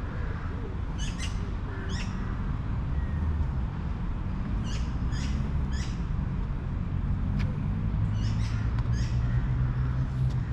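Small birds chirping: short high calls in groups of two or three, repeating every second or two, over a steady low rumble.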